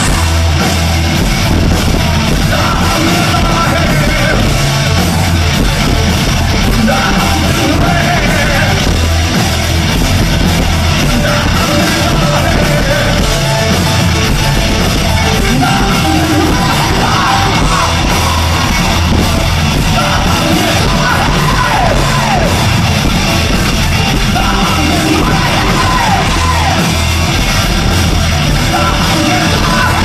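Rock band playing live, loud and continuous, with a male lead singer singing and yelling over the band.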